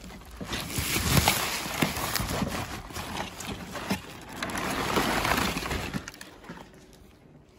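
Rustling and knocking of packaging being handled and opened, with irregular clicks and bumps in two longer swells, dying down near the end.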